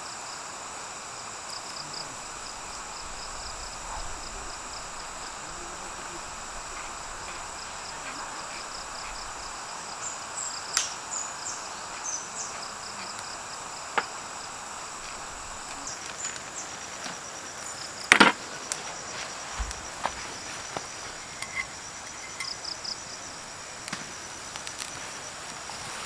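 Insects calling steadily in a high, pulsing chorus, with scattered small clicks and knocks and one louder knock about two-thirds of the way through.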